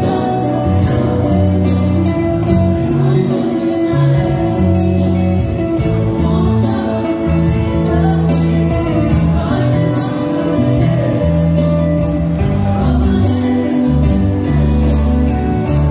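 Live rock band playing: drums, bass, electric guitars and keyboards, with a male vocalist singing over a steady beat.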